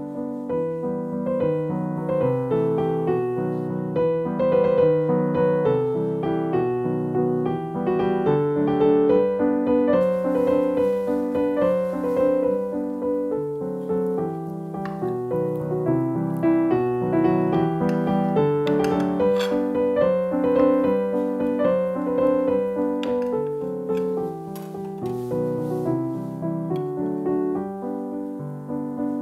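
Background piano music playing a flowing melody.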